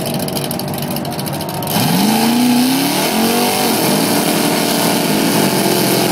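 Drag-racing car doing a burnout: the engine idles with a pulsing beat, then about two seconds in it revs up sharply in a rising pitch, dips briefly, and is held at high revs while the spinning rear tyres hiss and smoke on the track surface.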